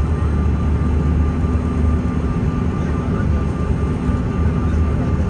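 Steady drone of an airliner's engines and rushing air heard from inside the passenger cabin in flight: a constant low hum with a steady higher tone running through it.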